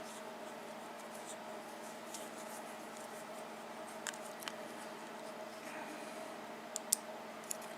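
A few small, sharp clicks of lock pins being handled while emptying the top pins out of a 5-pin pin-tumbler cylinder, over a steady low background hum.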